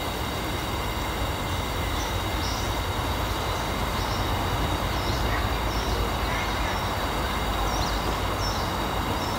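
Steady rushing noise with a low rumble, with a few faint short high chirps scattered through it.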